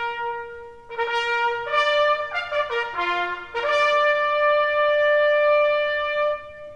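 A solo brass bugle call, its notes on the bugle's natural series. It opens with a long held note, moves through a quick run of notes in the middle, and ends on a long held higher note that stops just before the end.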